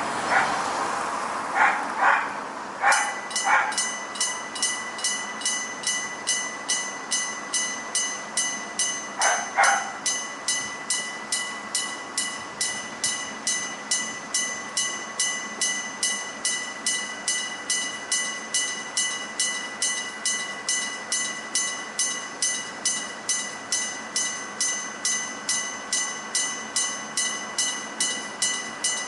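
Old-style electric-bell railway level crossing warning ringing. From about three seconds in it settles into a steady rhythm of a little over two strikes a second, with a lingering ringing tone. A few short sharp blasts stand out in the first few seconds, and a pair comes about nine seconds in.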